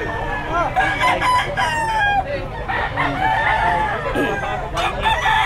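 Many gamefowl roosters crowing over one another, with some clucking mixed in.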